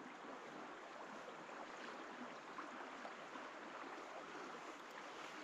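Faint, steady rushing of a flowing river current.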